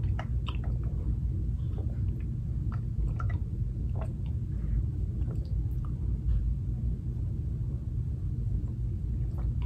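Someone sipping a drink through a straw from a plastic tumbler: faint, scattered sucking and swallowing clicks over a steady low rumble.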